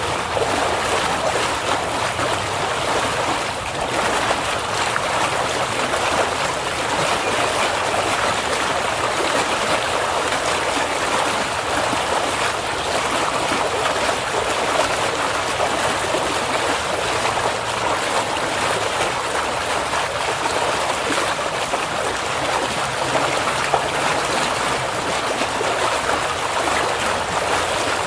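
River rapids: fast water rushing and splashing over rocks in a steady, unbroken wash.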